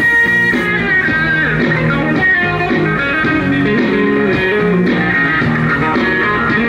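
Music: a guitar playing a bluesy melody, its notes bending and sliding in pitch over a steady accompaniment.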